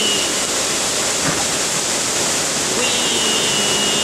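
Heavy storm rain and wind making a loud, steady rush. A long, slowly falling wail starts about three seconds in.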